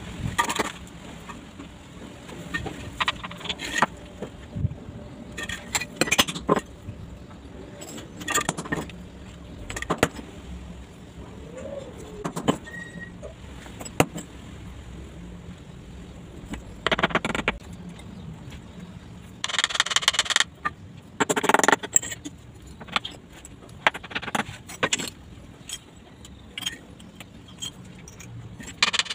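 Broken ceramic tile shards clinking and scraping as they are pressed into wet cement mortar, with a trowel scraping through the mortar. Short, irregular scrapes and clicks, with two longer scrapes about twenty seconds in.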